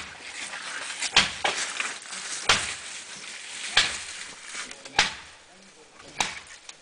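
Axe chopping into a tree trunk: sharp, evenly spaced strikes, about one every second and a quarter.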